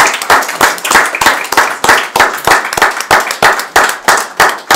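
A small group of people applauding with loud, sharp hand claps.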